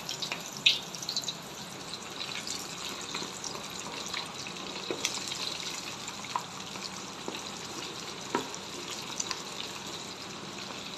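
Breaded chicken drumstick kababs deep-frying in very hot oil in a steel wok: a steady sizzle with scattered crackles and pops.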